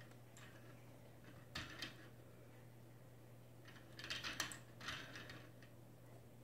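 Faint plastic clacking and rattling from the hanging toys on a Fisher-Price baby bouncer's toy bar as the baby handles them: a short burst about one and a half seconds in and a longer one around four to five seconds, over a steady low hum.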